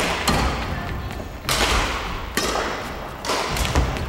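A few sharp hits and thuds ringing in a large, echoing gym: badminton rackets striking a shuttlecock, with footfalls on the wooden court floor.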